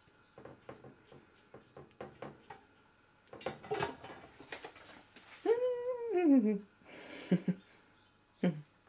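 Light clicks and scrabbling of a young red squirrel's claws on a steel pot and its lids. About halfway through a woman gives a falling hum-like 'ooh' lasting about a second, then there is a short rattle of a lid and a second brief falling 'ooh' near the end.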